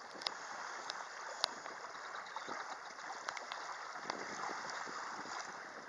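Small lake waves lapping and washing up onto a sandy shore, a steady hiss with a few light clicks scattered through.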